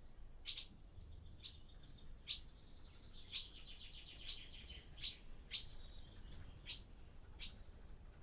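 Barn swallows calling: sharp, short chirps about once a second, with a fast twittering rattle in the middle, over a faint low rumble.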